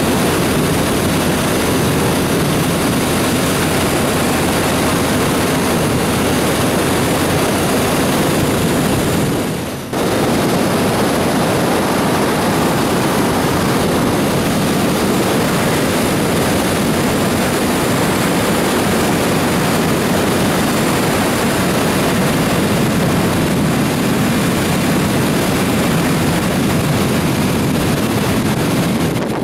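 Steady, loud rush of wind over the microphone with engine noise beneath, from a BMW R1150GS Adventure motorcycle at road speed. The sound briefly drops away and cuts back in about ten seconds in.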